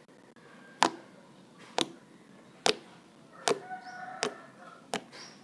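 Fingers pressing into a soft toothpaste slime, giving six sharp, crisp pops about one every 0.8 seconds: slime-poking ASMR sounds.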